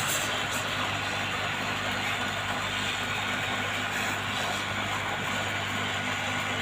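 Hot air rework gun blowing steadily with its airflow turned up to full: a constant rush of air over a low hum, heating a phone's screen to loosen it for removal.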